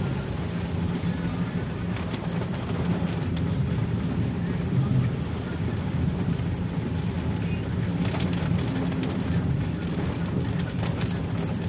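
Motor vehicle engine running steadily with road noise, a low hum throughout.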